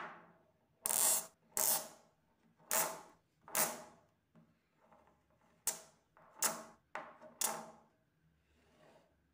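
Small magnetic metal balls clacking together and onto a cardboard game board as they are snapped into a chain and then a ring: about nine sharp clicks spread irregularly, each dying away quickly.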